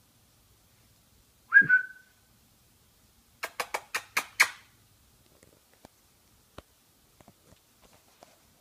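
A person gives one short whistle, calling a dog, about one and a half seconds in. It is followed by a quick run of six sharp smacks over about a second, then a few faint ticks.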